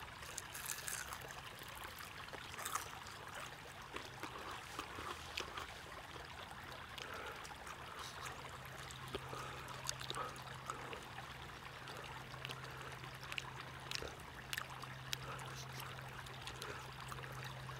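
A creek running steadily and faintly, with scattered small clicks and a low steady hum beneath it.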